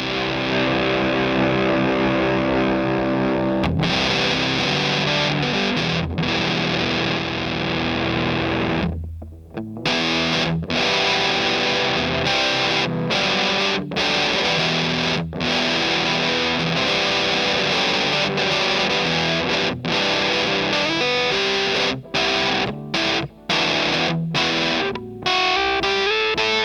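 Electric guitar played through a Hydra Fuzz pedal, a three-knob Tone Bender clone built with AC125 germanium transistors, giving a fuzz-distorted tone. It plays sustained chords and riffs with a short break about nine seconds in, choppy stabs near the end, and a last chord fading out.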